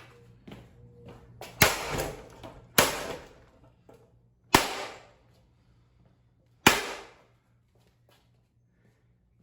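Four hard blows, about one to two seconds apart, striking the plastic blades of a Hampton Bay Gazebo ceiling fan, each a sharp crack with a short rattling decay. The blades hold up without breaking.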